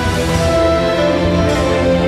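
Background music: held melodic notes over a steady low pulse.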